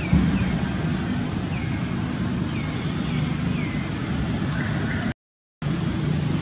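Steady low motor hum with a run of short falling chirps repeating about every half second; the sound cuts out completely for about half a second a little after five seconds in.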